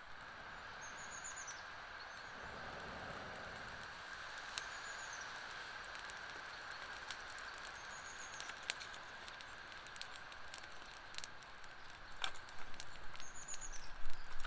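Freshly lit campfire of split kindling crackling, with sharp irregular pops that begin a few seconds in. Near the end, wooden sticks knock and clatter as more kindling is laid on.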